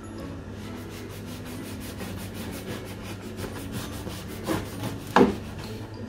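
A knife sawing back and forth through a crusty baguette on a wooden cutting board, with quick, even strokes. Near the end come a couple of sharper knocks.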